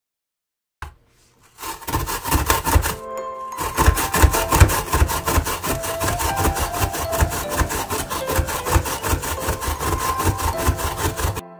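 Daikon radish being grated by hand on a grater: quick, even rasping strokes that start about a second and a half in, with a brief pause about three seconds in.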